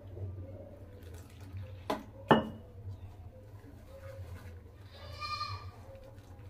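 Wire whisk scraping and stirring dry gram flour in a bowl, with two sharp knocks of the whisk against the bowl about two seconds in. About five seconds in a goat bleats once, over a low steady hum.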